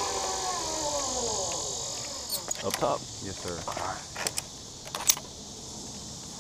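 Zip line trolley whining along the steel cable, its pitch falling over the first second and a half. Then a few sharp metal clicks of clips and gear, with two short vocal sounds among them.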